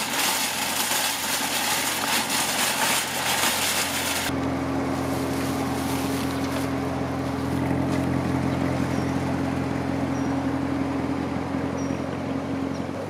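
Shopping cart wheels rolling and rattling over parking-lot asphalt for about four seconds. The noise stops suddenly, and a steady low hum with a few held pitches takes over, like an idling car engine, growing a little stronger midway.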